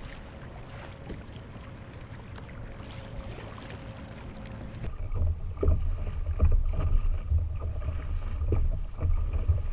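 Water splashing against a kayak on choppy open water, with wind on the microphone. About five seconds in the sound changes to heavier, gusty low wind buffeting with a few small knocks.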